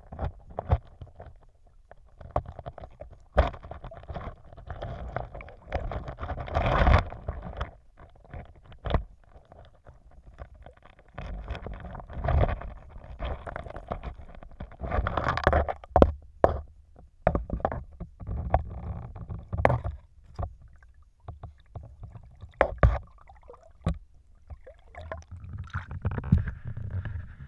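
Stream water heard through a GoPro's waterproof housing held underwater: muffled, uneven rushing and gurgling, with many sharp clicks and knocks.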